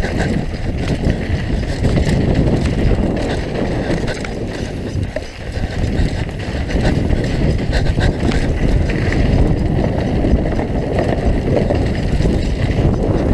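Downhill mountain bike rolling fast over a rough dirt singletrack: steady tyre roar on the dirt with continual rattles and knocks from the bike, and wind buffeting the microphone.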